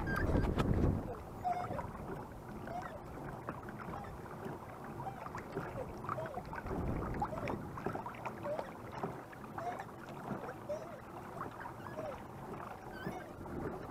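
Water rushing and splashing along the side of a pedal-driven kayak's hull as it moves through choppy water, with a short burst of wind rumble on the microphone in the first second.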